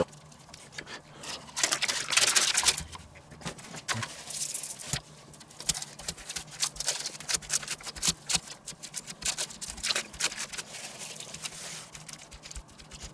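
Baking paper rustling and crinkling under gloved hands as it is laid out and pressed around a ball of minced meat. There is a denser stretch of rustling about two seconds in, and light crackling ticks throughout.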